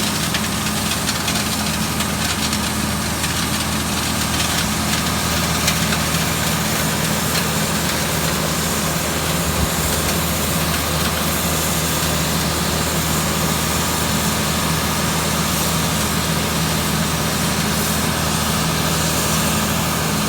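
IVAC PV500 industrial vacuum running steadily: a low hum under an even hiss of rushing air.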